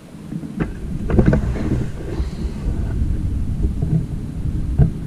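Low, rough rumbling on the microphone of a body-worn camera, with a few sharp clicks and knocks about half a second in, after about a second, and near the end.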